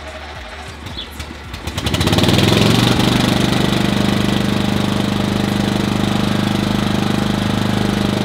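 Old ride-on lawn mower's engine cranked over and catching about two seconds in, then running steadily.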